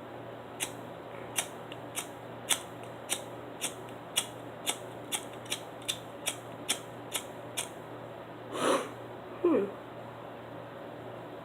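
Butane lighter's igniter clicked over and over, about fifteen sharp clicks roughly twice a second, without the flame catching. Near the end comes a short hiss and then a brief falling tone.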